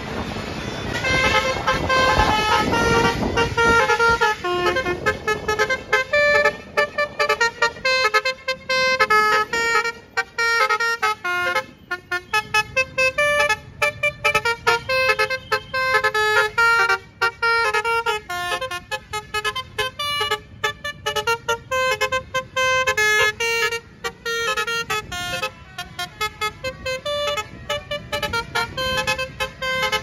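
Basuri telolet horns on passing tour buses playing a fast tune of short, clipped notes one after another. Engine and road noise from a passing bus swells in the first few seconds.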